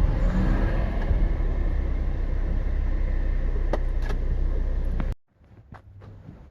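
Steady low rumble and hiss of a running vehicle that cuts off abruptly about five seconds in. A quiet stretch with a few faint clicks follows.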